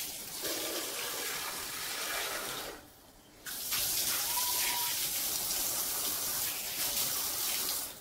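Water running in two spells: about three seconds of splashing flow, a brief pause, then about four seconds more that stops just before the end.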